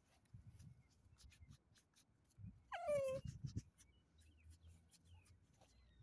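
Small dog gives one short whine that falls in pitch, about three seconds in, over faint rustling and light clicks.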